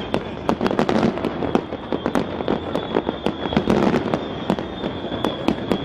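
Fireworks display going off: a rapid, irregular run of sharp cracks and bangs, several a second, over a continuous noisy background.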